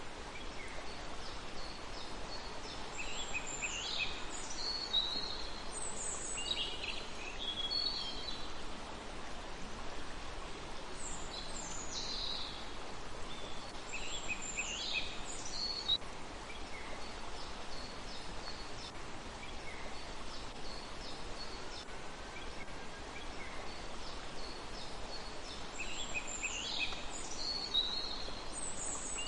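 Small songbirds singing short, quick phrases of high notes that drop in pitch, in a few bouts with pauses between, over a steady background hiss.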